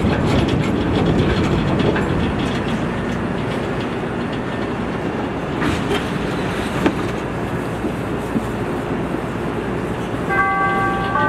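Chicago 'L' rapid-transit train running through a station: a steady rumble with wheel clatter on the rails. A two-note tone sounds near the end.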